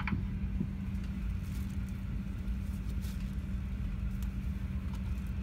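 Steady low hum and rumble of an Airbus A350-1000 airliner cabin before departure, with one steady low tone running under it. Faint light rustles come from a fabric blanket being handled.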